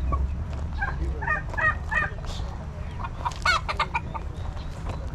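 Caged chickens clucking: a quick run of short calls about a second in, then a longer call about three seconds in.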